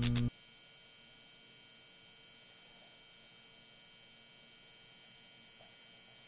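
Faint steady hiss with thin background hum tones, after a louder humming sound cuts off about a third of a second in.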